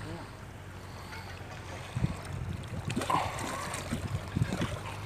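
Water splashing and sloshing as a hooked fish thrashes at the surface beside a landing net held in the water, in irregular bursts from about two seconds in.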